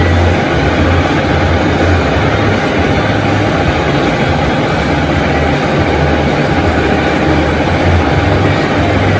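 Metal lathe running steadily, with a hand-ground high-speed steel tool taking a finishing cut on cold-rolled steel, over a low motor hum that rises and falls unevenly.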